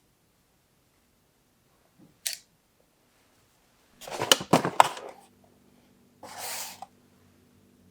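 Bike-workshop handling noises: a short scrape about two seconds in, then about a second of sharp clicks and knocks, then a brief hiss near the end.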